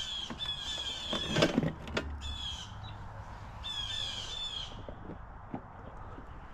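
A bird gives harsh, squawking calls four times, each just under a second long. A brief clatter of knocks about a second and a half in is the loudest moment.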